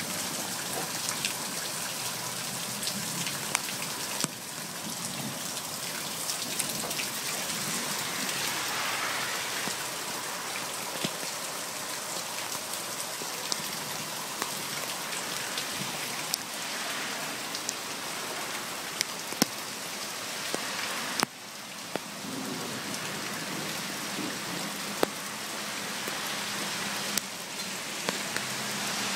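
Steady rain hissing as it lands on soil and plants, with scattered sharp splats of single drops. The water is coming off the edge of a house roof that has no gutter.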